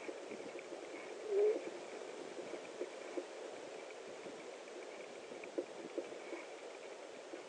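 A great horned owl gives one short, low hoot about a second and a half in, over steady hiss with scattered faint clicks from the nest.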